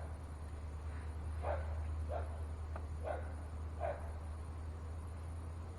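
A dog barking four times in short, separate barks, over a low steady hum.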